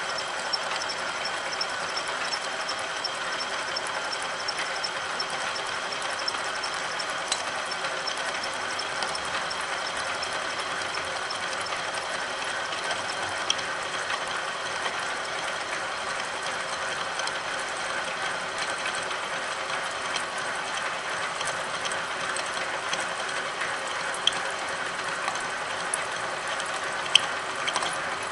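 Milling machine running steadily as its helical end mill cuts a cam lobe into a metal disc, with the dividing head geared to the table lead screw turning the work. The machine's geared drive gives a steady mechanical whir, with a few sharp ticks scattered through.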